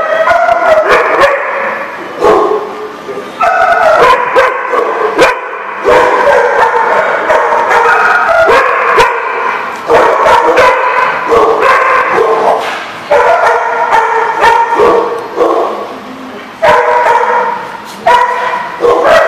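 Dogs wrestling in play, yipping, barking and whining in long pitched bouts with only short breaks.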